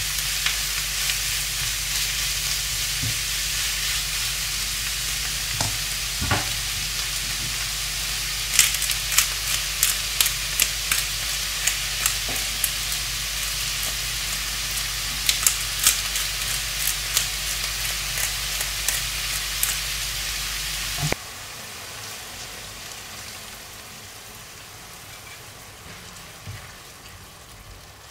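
Food sizzling as it fries in a non-stick wok-style pan, stirred with a silicone spatula, with a run of sharp pops and clicks through the middle. About two-thirds of the way through the sizzle drops suddenly to a quieter level.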